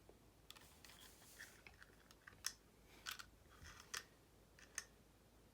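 Faint scattered clicks and scrapes of electrical wires being handled and joined, with a few sharper clicks in the second half.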